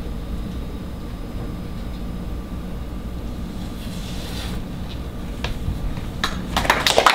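Steady low rumble of a quiet theatre auditorium, with scattered clapping starting about six seconds in and thickening into applause near the end.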